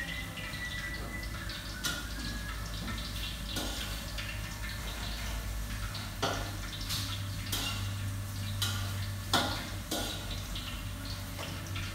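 Kitchen clatter: scattered clinks and knocks of bowls, pots and utensils being handled on a counter, the loudest about nine seconds in, over a steady low hum.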